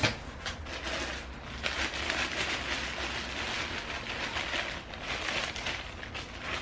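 Clear plastic packaging bags crinkling and rustling as clothes are pulled out of a large cardboard shipping box.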